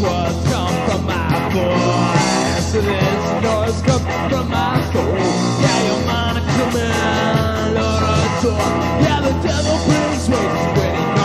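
Punk rock band recording: electric guitar and drum kit playing a loud, driving song.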